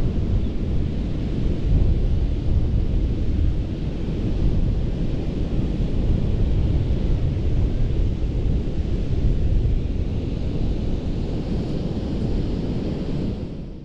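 Ocean surf washing onto a sandy beach, a steady low rumble and hiss with wind buffeting the microphone. It fades out near the end.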